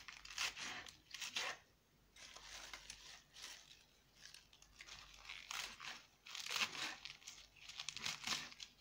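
Green leaf lettuce torn apart by hand, a run of crisp ripping and crunching sounds in short irregular bursts, with a quieter stretch in the middle.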